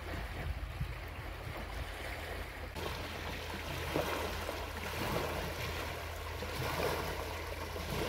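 Fast-flowing water rushing and churning along a wide canal, a steady noise that grows a little louder and hissier about three seconds in.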